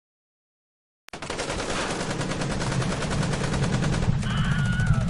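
Automatic gunfire, a continuous rapid stream of shots that starts about a second in and grows a little louder.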